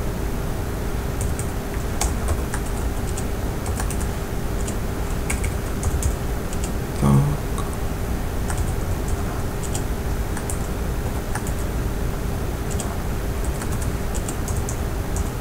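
Typing on a computer keyboard: irregular key clicks throughout, over a steady low hum. About halfway through there is one short, louder low sound.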